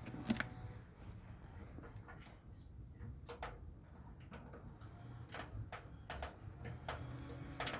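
Scattered light clicks and taps from hand tools and parts being handled during work on a mini-split condenser, the sharpest about a third of a second in and another near the end, over a low steady hum.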